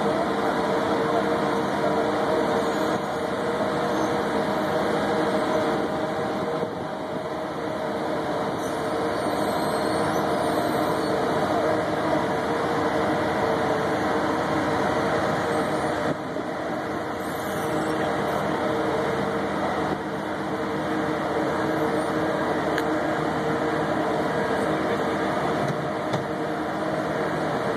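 Large mobile boat hoist (travel lift) holding a yacht in slings, its engine and hydraulic drive running with a steady drone.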